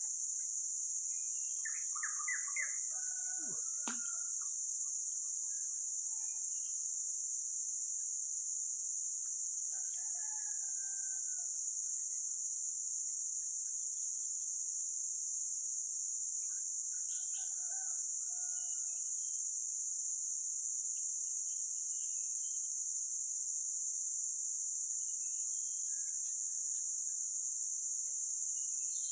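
A steady, high-pitched drone of insects in the forest, with scattered bird calls a few times and a single sharp knock about four seconds in.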